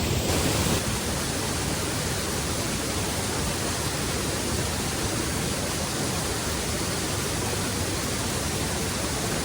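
Steady, even rushing of water falling over a waterfall.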